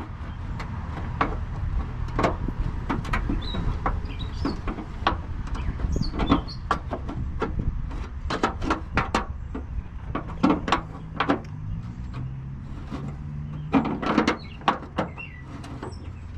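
Irregular knocks and clanks of a wrench banging against a car's running light housing and the metal around it while working a stubborn fastener loose, over a steady low rumble.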